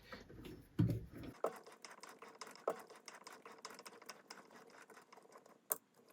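Faint, irregular metal clicks and ticks of an M6 tap being turned by hand into a small metal part, cutting the inner thread, with a low bump about a second in.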